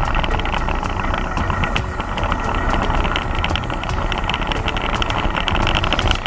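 Soapbox cart rolling fast downhill on asphalt: a steady rush of wheel and road noise with a constant fine rattle from the cart, over a low rumble of wind on the microphone.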